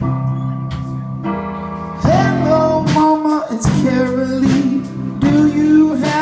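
Live band playing an instrumental passage of a roots-rock song: sustained keyboard chords, joined about two seconds in by a held, sliding lead line over the band.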